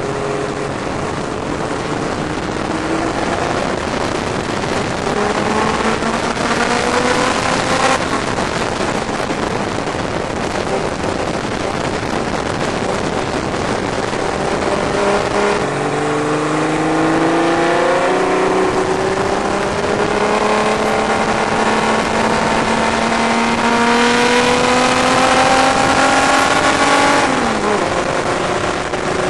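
Onboard sound of the BMH Comic Book Special race car's engine under hard acceleration, its pitch climbing in long steady pulls, with wind rushing over the open cockpit. Near the end the revs fall away sharply as the throttle comes off.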